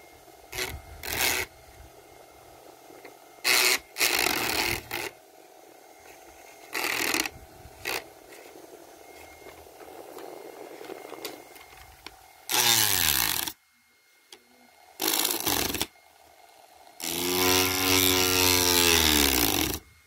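Sheet of paper fed into the spinning plastic blades of a small desk fan: loud bursts of paper flapping and tearing, seven or so times, over the fan's quieter motor hum. In the longer bursts the pitch falls as the paper drags the blades down, and the blades stall at the end.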